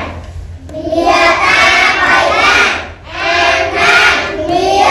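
A class of young children reading aloud in unison, chanting the Khmer words syllable by syllable in a sing-song rhythm. After a short pause at the start come two long chanted phrases with a brief break between them.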